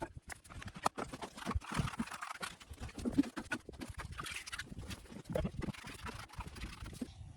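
Irregular knocks, clatters and scrapes of hand building work on wet concrete.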